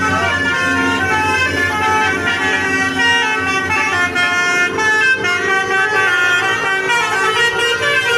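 Basuri telolet horn on a bus, a multi-tone musical air horn, playing a fast melody of stepped notes without a break.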